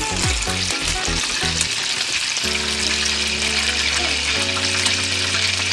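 Beef burger patty and burger bun frying in hot oil in a pan, a steady sizzle. Background music with held low notes comes in about two and a half seconds in.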